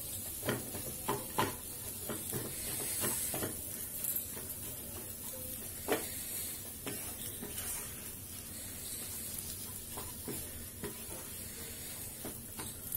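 Wooden spatula stirring and scraping a mashed potato masala around a nonstick kadhai, with irregular light knocks against the pan over a faint sizzle from the low flame.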